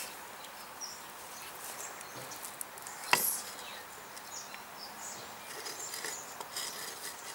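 Cored clay bricks being set on one another: one sharp brick-on-brick knock about three seconds in, with a few fainter clicks and scuffs as the bricks are shifted into place.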